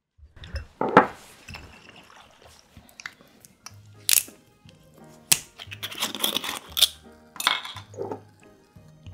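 A thump about a second in, then sharp clicks and a short stretch of crackling as a green glass soju bottle is handled and its screw cap is twisted open, with glass clinking.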